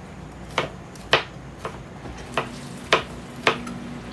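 Kitchen knife slicing bitter melon (ampalaya) on a cutting board: about six sharp knocks, roughly two a second, as the blade goes through each slice and strikes the board.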